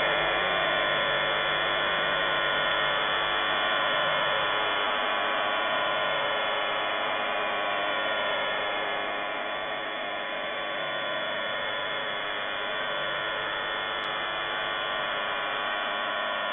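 Shortwave receiver audio of an unidentified signal on 5211 kHz, taken for jamming: a steady buzzing hum of many stacked tones over static hiss, heard through a narrow receiver passband.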